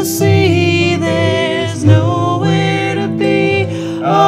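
A folk song played on acoustic guitar and electric harp, with voices singing a melody over them.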